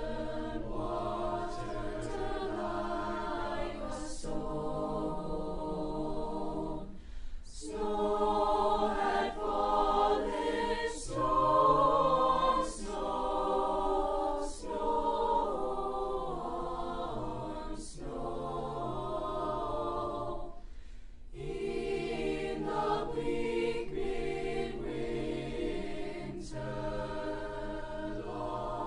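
Choir of student singers performing a holiday song in long held phrases, pausing briefly for breath about seven seconds in and again around twenty-one seconds.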